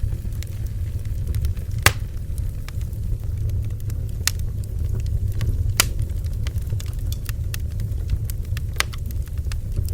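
Bonfire burning: a steady low roar with irregular sharp crackles and pops of burning wood, the loudest pops about two and six seconds in.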